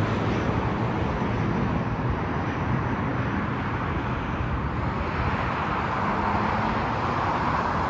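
Departing airliner's engine noise going on as a steady rumbling rush as the aircraft climbs away. A low hum dies out at the start.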